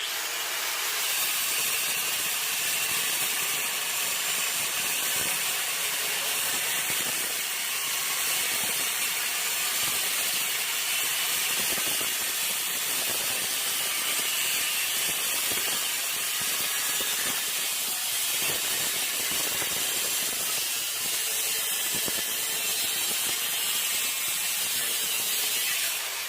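A power cutting tool running steadily through steel plate, a continuous loud hiss-and-grind of metal being cut.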